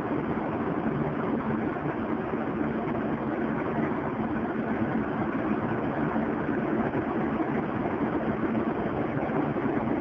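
Steady low mechanical drone with a faint constant hum, like an engine or motor running, unchanging throughout.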